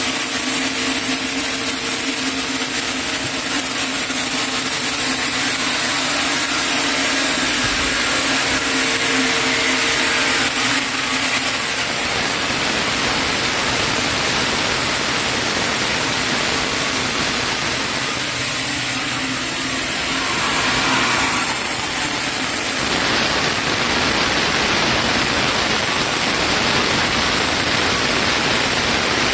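Sawmill saw cutting through a chinaberry log, a loud steady mechanical noise; its low hum drops away about twelve seconds in while the broad cutting noise goes on.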